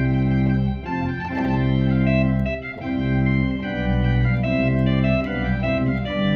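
Church organ playing a rondeau: full, held chords over a deep bass, changing about once a second, with short breaks between phrases.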